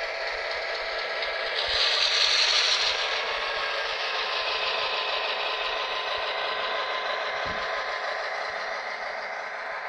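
Toy electric train running along its track close by, a steady mechanical whir of motor and wheels that is loudest about two seconds in as the train goes by.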